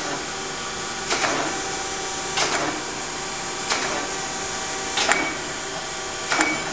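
Chevalier FSG-1224AD hydraulic surface grinder running its automatic grinding passes: a steady hum from the spindle and hydraulics, broken about every 1.3 seconds by a short sharp burst of noise as the table strokes back and forth.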